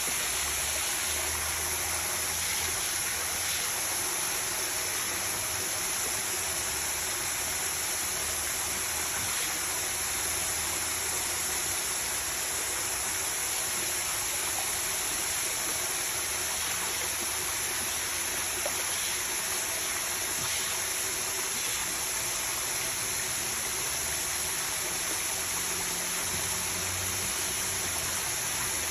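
Water running steadily in a continuous, even rush.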